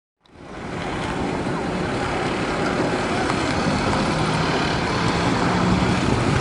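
Small hatchback car driving and turning on open ground, its engine hum mixed with steady outdoor rushing noise. The sound cuts in a moment after the start and holds steady.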